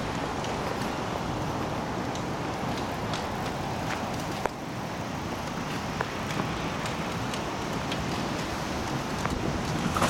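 Steady urban street noise from road traffic, a continuous wash of passing cars, with a couple of light clicks midway.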